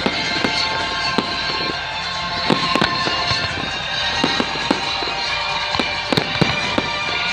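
A fireworks display: frequent, irregular sharp bangs, several close together at times, over music playing alongside.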